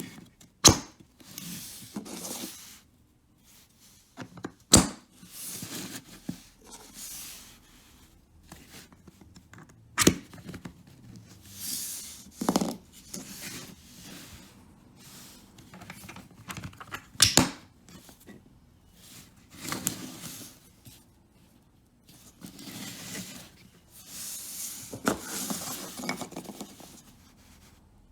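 Model-kit parts being handled and fitted together: rustling and scraping, broken by a handful of sharp clicks as pieces snap or knock into place.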